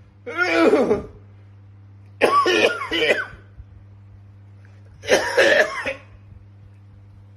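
A man coughing in three bouts, each lasting under a second and spaced about two and a half seconds apart. This is a 'tren cough', the coughing fit that trenbolone injections can bring on.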